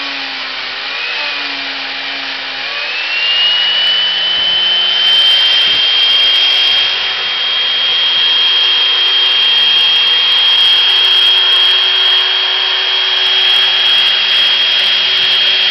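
Housing router (a carpentry dado-cutting router on a rail carriage) running and cutting a housing slot in a timber beam: a high motor whine over the rush of the bit in the wood. The whine wavers at first, then rises about three seconds in and holds steady as the sound gets louder.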